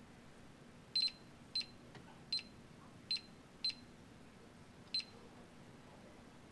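Digital multimeter beeping six times in short, high beeps at uneven intervals, the sound of its continuity tester as the probes touch connected points while the circuit is traced.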